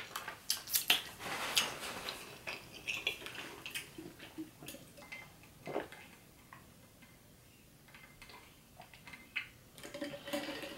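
Close-miked eating sounds: many small clicks of a spoon and food against the tray and wet mouth clicks while chewing, with one louder knock near the middle. Then a quieter stretch of swallowing while drinking from a tumbler, and a few more clicks near the end.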